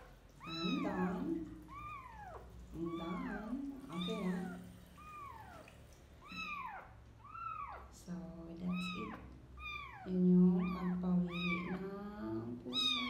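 Newborn kitten meowing over and over: high, thin calls that rise and fall in pitch, about one a second.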